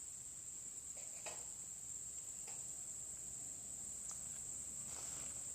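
Insects chirring steadily at one high pitch, with a few faint soft clicks.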